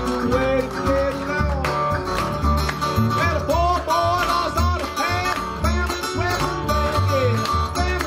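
Country blues band playing without vocals: a Johnson resonator guitar fingerpicked in open D tuning, a harmonica playing wavering, bent notes, and a washtub bass plucking a pulsing low line.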